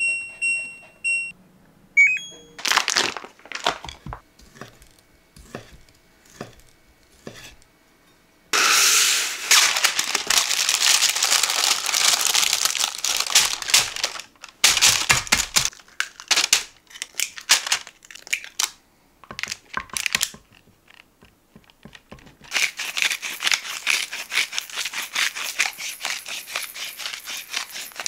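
Kitchen handling noise: a short electronic beep at the start, then scattered clicks and knocks and two long stretches of dense crinkling or scraping, the second made of rapid close-set strokes.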